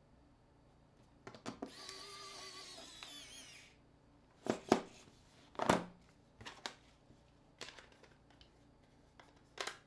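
A small electric screwdriver whirring for about two seconds, its pitch wavering under load, while screws are driven out of a smartphone. Then several sharp clicks and taps of phone parts and tools being handled, the two loudest about halfway through.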